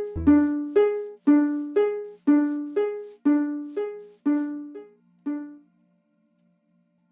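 Fire alarm chime sounding a repeating two-note ding-dong, about two chimes a second, each note ringing and decaying. It stops about five and a half seconds in, leaving a faint low hum.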